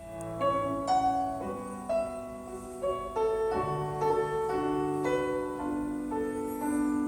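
Slow solo piano intro to a ballad, single notes and chords struck one after another and left to ring, played back over KEF LS50 Meta bookshelf speakers and picked up by a phone microphone in the room.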